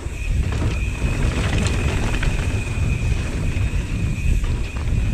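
Wind buffeting the microphone of a mountain bike's POV camera while riding a dirt trail, with the rumble of the tyres on dirt and a few sharp knocks and rattles from the bike. A steady high whine sits underneath.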